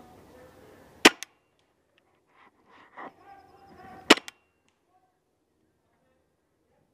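Magazine-fed paintball marker firing two single shots about three seconds apart, each a sharp crack with a smaller click just after it.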